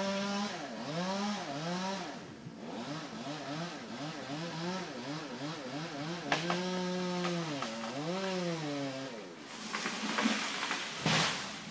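A two-stroke chainsaw running at high revs with a steady note, then its engine pitch dropping and picking up again many times in quick succession as it cuts. Near the end the engine note stops and two short bursts of noise follow.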